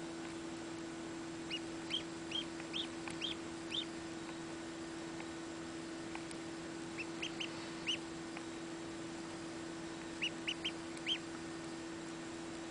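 Newly hatched Aylesbury duckling peeping: short, high peeps that rise and fall, in three bursts of about six, four and four. A steady low hum runs underneath.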